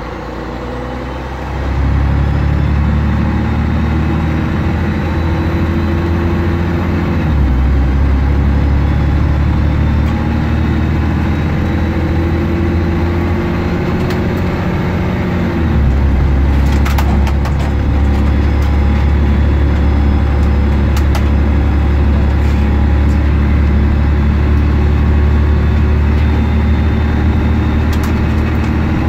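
A Scania N113 bus's 11-litre six-cylinder diesel engine, heard from inside the bus, running under load as it picks up speed. The engine note steps twice, about seven and sixteen seconds in, in the way of gear changes. A few short rattles come from the body.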